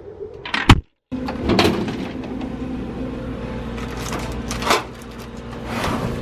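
A steady machine hum with several sharp knocks and clatters, typical of a vending machine's door being opened and its contents handled.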